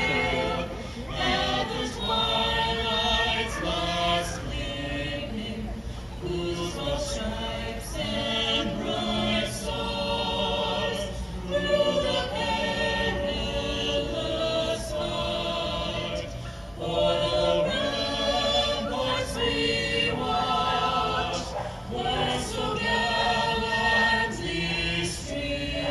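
A small choir of men and women singing together in sung phrases with short breaths between them, heard over a ballpark's loudspeakers.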